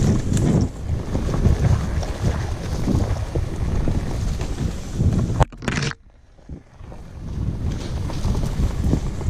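Wind buffeting the microphone: a rough, irregular low rumble that drops away briefly about six seconds in, then returns.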